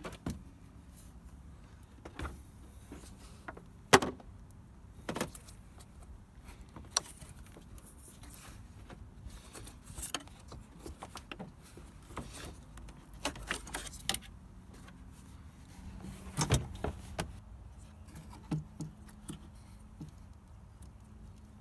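Scattered sharp plastic clicks, knocks and light rattles as a Ford Focus MK2 headlight unit is handled, its wiring connector unplugged and its old H7 dipped-beam bulb taken out. The sharpest click comes about four seconds in, with a busier run of clicks later on.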